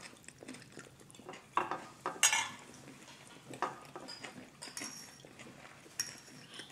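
Metal spoons and forks clinking and scraping against white ceramic bowls as people eat: scattered light clinks, a few sharper ones with a brief ring.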